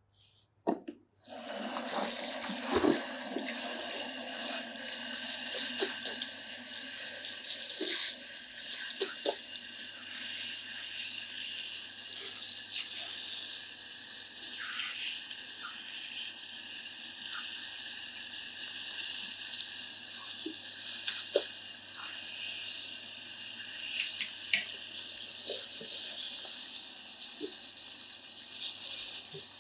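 Tap water running steadily into a salon shampoo basin, coming on about a second in, with small splashes and knocks as hands rinse the hair.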